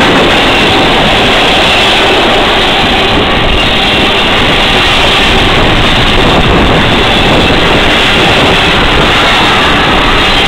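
Double-stack container well cars of a CSX freight train rolling past close by: a loud, steady rumble of steel wheels on the rails.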